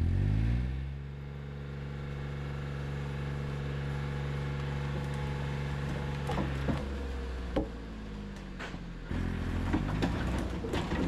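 Yanmar three-cylinder diesel engine of a C25R tracked dumper rising in speed at the start, then running at a steady pitch. There are sharp metallic clanks about two-thirds of the way through, and the engine note changes near the end, with more clatter.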